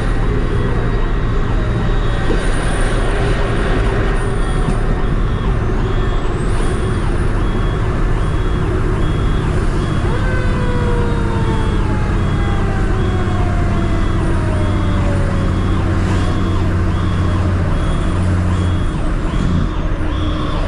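Diesel engine of a 2003 Pierce Dash fire truck running steadily under way, heard inside the cab. Siren tones slide slowly down in pitch over it, and a high beep repeats a little faster than once a second.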